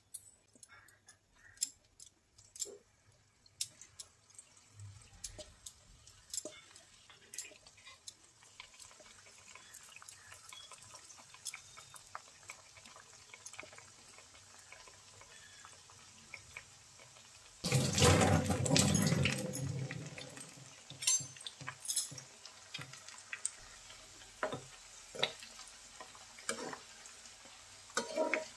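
Battered bitter gourd slices deep-frying in hot oil: a steady sizzle with scattered pops and crackles. About two-thirds of the way through there is a loud burst lasting about two seconds, and near the end a slotted spoon knocks against the pan as the slices are stirred.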